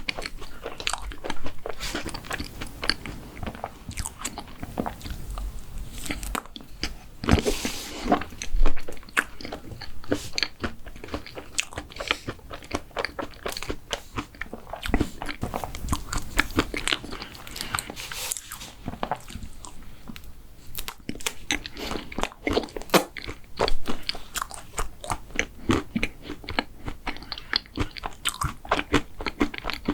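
Close-miked eating of mint-chocolate desserts: crunchy bites and chewing, a dense run of quick crisp crunches.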